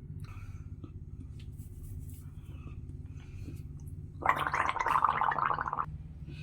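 A person gargling lukewarm water mixed with Betadine drops: a rapid bubbling rattle in the throat lasting under two seconds, starting about four seconds in.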